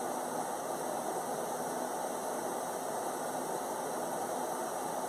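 Steady, even background noise like a hiss or fan, with no distinct events.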